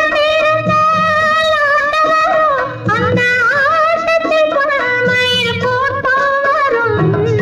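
Tamil film song music: a long, held melody line with vibrato over a steady low drum pulse, between the sung lines of the song.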